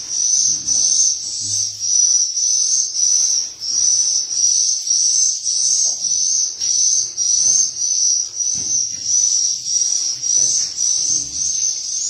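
Loud, high-pitched swiftlet chirping in a swiftlet house, repeating evenly about one and a half times a second.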